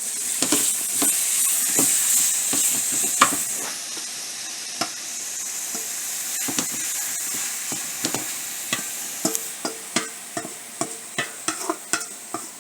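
Chicken breast pieces sizzling in a pot of hot curry while a spoon knocks and scrapes against the pot as it is stirred. The sizzle fades after a few seconds, and near the end the knocks come quick and regular, about three a second.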